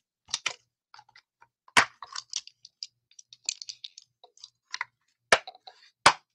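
Clear plastic case of a photopolymer stamp set being handled, opened and closed: about four sharp plastic clicks and knocks with light crackling of the plastic between them.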